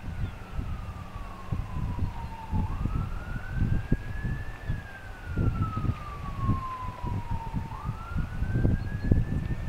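A siren wailing, its pitch falling slowly and then sweeping quickly back up about every five seconds. Wind buffets the microphone in uneven gusts.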